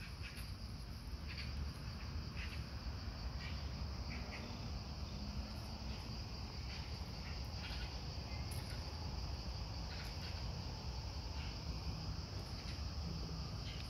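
Steady high-pitched drone of insects singing, with scattered light ticks and rustles over it.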